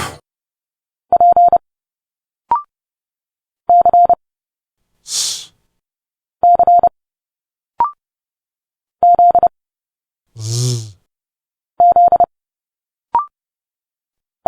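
Morse code at 30 words per minute: five quick groups of dits and dahs on a steady tone of about 700 Hz, about 2.6 s apart. Each group is followed by a short spoken speech sound, such as a clipped consonant, a hiss like 's', and a buzzing 'z'-like sound.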